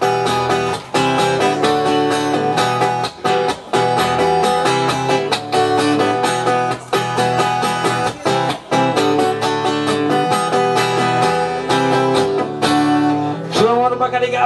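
Acoustic guitar strummed in a steady, busy rhythm of chords, an instrumental passage. Near the end a man's voice comes in over it.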